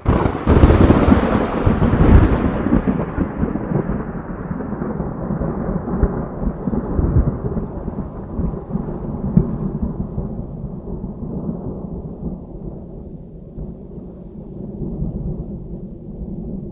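A thunderclap: a sharp crack with a second burst about two seconds in, then a long low rumble that rolls on and slowly dies away.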